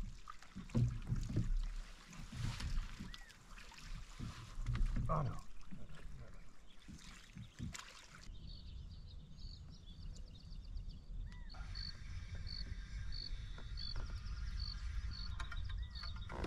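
Knocks, thumps and rustling of a fish and gear being handled aboard a fishing kayak. After about eight seconds this gives way to a steady low hum with a short high chirp repeating about every 0.7 seconds.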